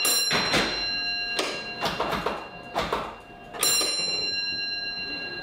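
Signal box block bell sending a bell code: a struck bell rings near the start and once more about three and a half seconds in, its tone lingering, with sharp clicks of the instrument's tapper between the rings. The code is the 2-1 "train out of section" signal, telling the next box that the train has arrived complete and the line is clear.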